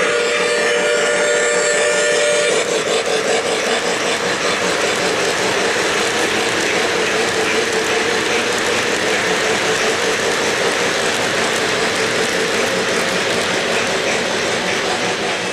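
O-gauge three-rail model freight train rolling past on the track: a steady rumble and clatter of its wheels on the rails, with a slight rhythmic pulse. A steady pitched tone rides over it for the first two seconds or so and stops abruptly.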